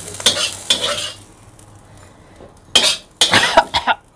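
Metal spatula scraping and knocking against a wok as fried chilies, tomatoes and shallots are pushed out into a stone mortar, with a faint sizzle of hot oil at first. A cluster of louder scrapes and knocks comes in the second half.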